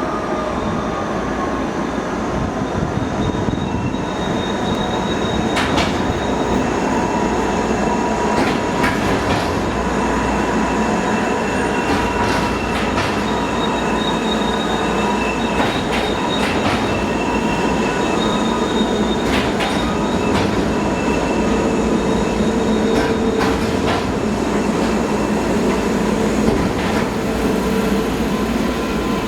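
Resort rail tram running on its track: a loud, steady rolling noise with thin squealing tones from the wheels and sharp clicks every second or few.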